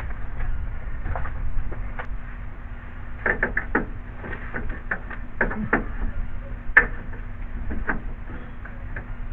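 Scattered light clicks and knocks of hand work on a car's radiator support as a rubber seal is worked down into place, with a cluster of them about three seconds in and a single sharper knock near the end, over a steady low rumble.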